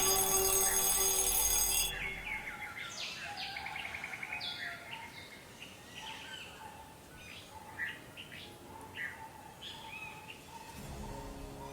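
Birds chirping and trilling, many short calls overlapping. A ringing, many-toned sound, like music or a bell, cuts off about two seconds in, and low music comes in near the end.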